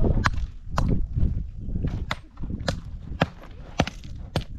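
A steady series of sharp knocks or strikes, a little under two a second, over a low rumble that fades after the first second or so.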